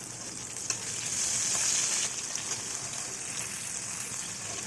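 Chopped onion, ginger, garlic and tomato sizzling in hot oil in a kadai, the sizzle swelling about a second in, with a single click just before.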